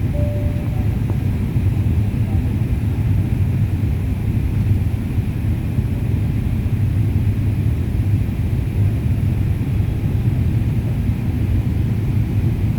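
Steady low rumble of an airliner cabin in flight: jet engine and airflow noise, unchanging throughout.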